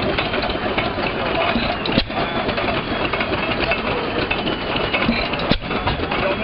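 Hercules 7 HP screen-cooled hit-and-miss engine running while belted to a grist mill. Two sharp bangs stand out, about two seconds in and again near the end.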